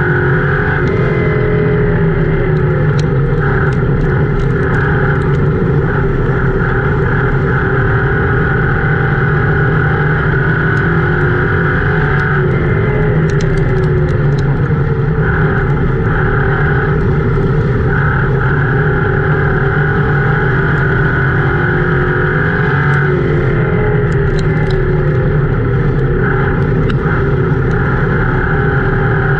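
Ford Crown Victoria race car's V8 engine running hard, heard from inside the cabin. Its pitch dips and climbs again roughly every eleven seconds as the car lifts for the turns and accelerates down the straights. A few sharp clicks come in scattered clusters.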